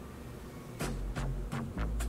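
K-pop girl group song from a music video: a quiet intro, then about a second in the beat comes in with deep bass and sharp, evenly spaced drum hits.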